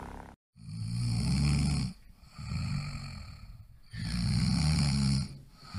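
A sleeping puppy snoring in slow, even breaths: a loud snore, a softer one, then another loud one, each about a second and a half long.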